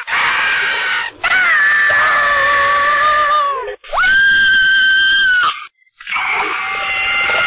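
A cartoon squirrel character, Scrat, screaming in a series of loud, shrill screams with short breaks between them. One scream slides down in pitch, the next is held high and steady, and another starts shortly before the end.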